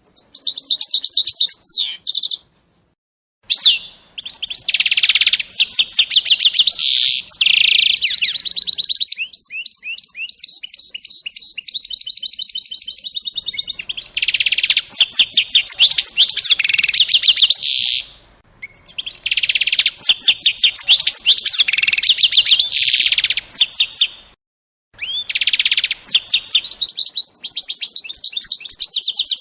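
A small songbird singing long, loud phrases of rapid high trills and chirps, broken by a few short pauses.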